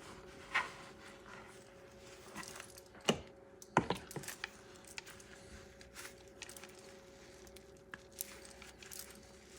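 Light, scattered taps and rustles of riced cauliflower being handled in a thin cloth to dry out its water, a few sharper taps about three to four seconds in, over a steady faint hum.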